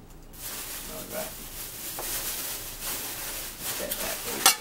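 Plastic shopping bag rustling and crinkling as it is handled, swelling and easing, with one sharp knock near the end.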